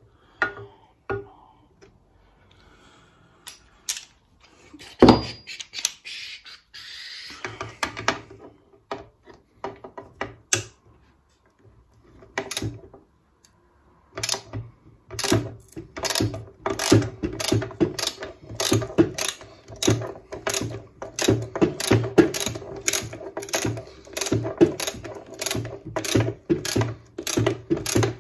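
Socket-wrench ratchet clicking in quick back-and-forth strokes, about two a second, as a bolt holding the engine to the mower deck is undone. Before that, a single sharp knock about five seconds in, then scattered handling of tools.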